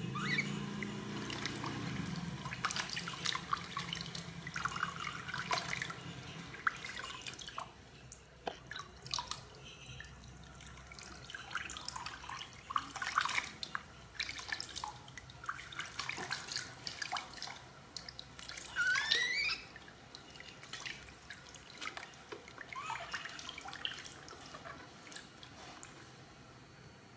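Water splashing and dripping into a plastic basin as a hand scoops it over a newborn monkey being bathed, in irregular little splashes and drips. About two-thirds of the way through there is a short rising squeal.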